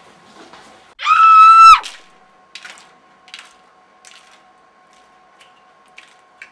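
A loud, high-pitched scream held at one pitch for just under a second, starting about a second in. Afterwards, a few faint ticks sound over a faint steady hum.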